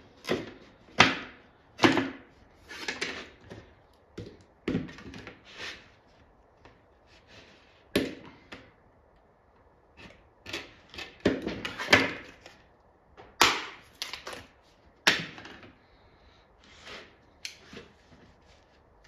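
Plexiglass pieces and tools being picked up, set down and shifted on a wooden workbench: irregular knocks, taps and short scrapes, a few of them sharp and loud.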